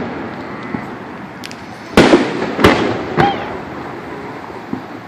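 Aerial fireworks shells bursting: a loud bang about two seconds in, a second bang about half a second later and a smaller third, each echoing away.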